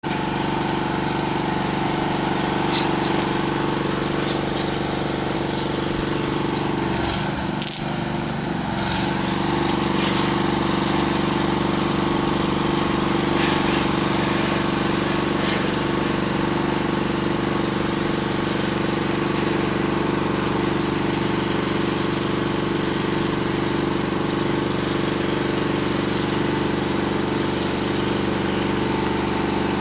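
Engine running steadily at a constant speed; its pitch sags and recovers briefly about seven seconds in, with a few sharp clicks scattered through.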